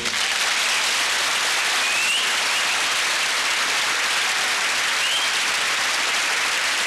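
Studio audience applauding steadily, with two short rising calls heard over the clapping about two and five seconds in.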